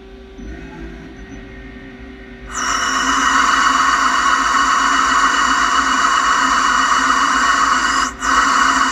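Samsung SL15 CNC lathe turning a 6Al4V titanium workpiece: a low steady hum, then about two and a half seconds in a sudden loud, steady rushing noise with several steady tones as the cut begins. It briefly drops out near the end.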